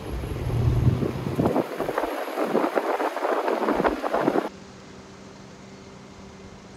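Strong wind buffeting the microphone in loud, rumbling gusts. About four and a half seconds in it cuts off suddenly to a quieter steady hum.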